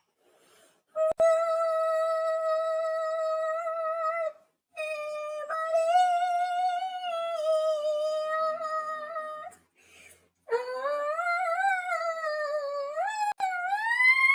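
A wordless melody sung in long held notes, in three slow phrases with short breaks about four and ten seconds in. The last phrase slides up and down in pitch.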